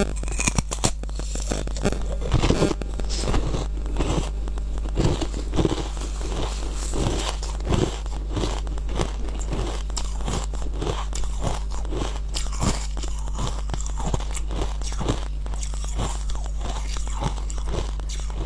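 Close-miked biting and chewing of a piece of frozen honey ice: repeated crunches and crackles as it breaks up in the mouth, heaviest in the first several seconds.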